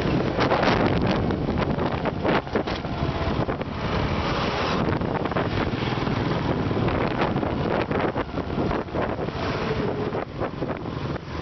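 Wind buffeting the microphone of a camera riding on a moving motorcycle, with the motorcycle's engine and the rush of a truck and a bus being passed close by.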